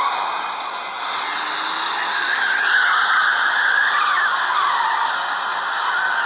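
Car tyres squealing under hard driving, with a long wavering squeal loudest around the middle, over engine and road noise.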